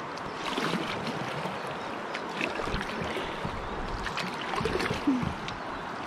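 Kayak paddle strokes splashing and dripping water beside a plastic fishing kayak on a flowing river, with a brief low sliding sound about five seconds in.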